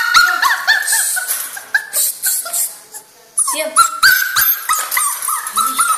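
Two-month-old puppy crying: short, high-pitched whimpers and yelps, several a second, with a brief pause about three seconds in.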